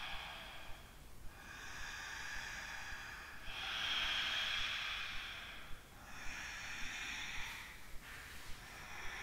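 Ujjayi yoga breathing: slow, audible hissing breaths drawn through a narrowed throat, inhales and exhales alternating with a new breath about every two seconds.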